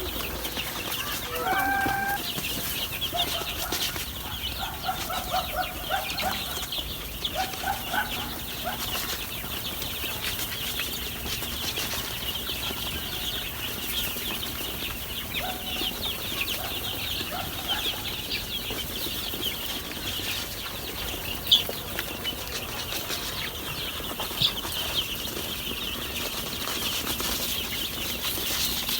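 A brood of week-old chicks peeping continuously, many high chirps overlapping. Lower clucking calls come through in the first several seconds and again around the middle, and there are two sharp clicks about three seconds apart near the end.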